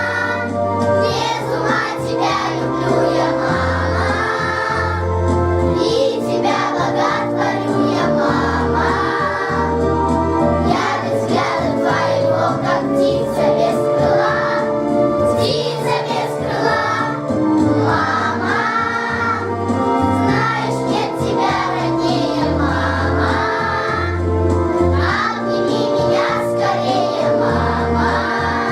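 A group of children singing together over a recorded instrumental backing track with a steady beat and bass line.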